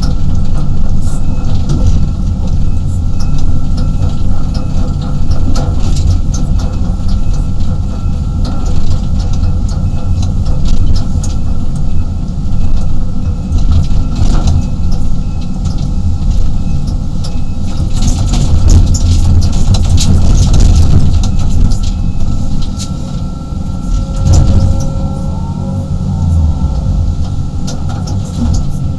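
A 35-ton excavator's diesel engine and hydraulics running under load, heard from inside the cab: a heavy low drone with a steady whine over it. Scattered knocks and clatter come from the bucket working dirt and rock, thickest a little past the middle.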